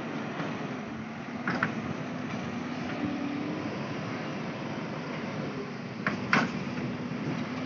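JCB backhoe loader's diesel engine running steadily, with three sharp knocks: one about a second and a half in and two close together near the end.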